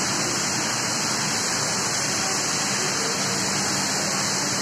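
Heavy tropical downpour: a steady, even hiss of rain pouring onto paving, trees and the street.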